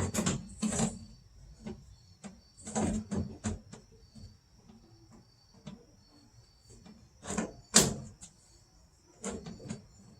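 Irregular knocks, clicks and scrapes of hand work on a car door while its glass is fitted, the loudest knock a little before 8 s.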